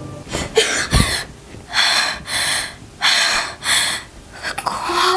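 A young woman breathing hard in heavy, gasping breaths, frightened as if jolted awake from a nightmare: a sharp gasp with a dull thump about a second in, then four ragged breaths in quick succession and another near the end.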